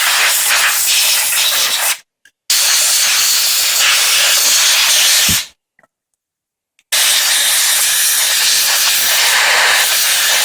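Compressed air blowing hard through the heater blower motor to clean dust out of its internals, in three long blasts of hiss with short pauses between them.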